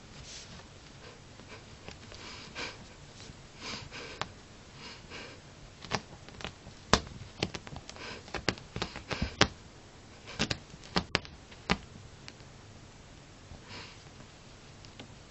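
Bengal cat rolling and rubbing on carpet in catnip, making soft scuffing and rustling noises. From about six seconds in comes a run of sharp clicks and taps lasting several seconds, the loudest about a second later and again near the middle.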